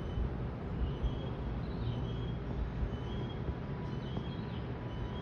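Outdoor ambience: a steady low rumble with a bird repeating a short high call about once a second.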